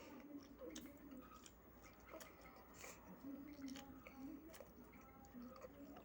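Faint chewing with scattered wet mouth clicks: a person eating spicy noodles.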